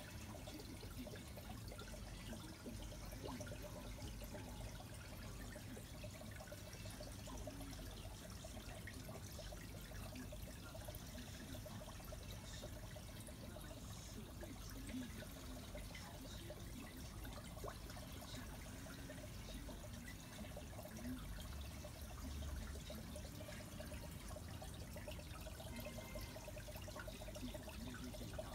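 Faint, steady trickling and bubbling water from an aquarium's air-driven box filter, with a faint steady hum underneath.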